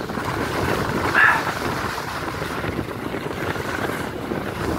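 Wind rushing over the microphone and skis sliding and scraping on groomed spring snow during a downhill run.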